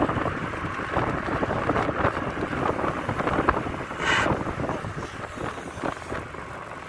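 Wind buffeting the microphone of a camera carried on a moving bicycle, a steady uneven rush, with a brief louder hiss about four seconds in.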